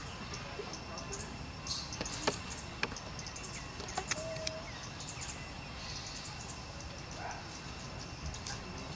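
Outdoor ambience: small birds chirping now and then over a steady hiss, with a few sharp clicks about two to four seconds in.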